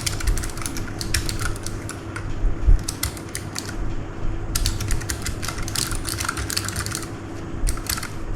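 Keys of a Keychron K3 low-profile mechanical keyboard being pressed and typed on, clicking in quick irregular runs with short pauses between them.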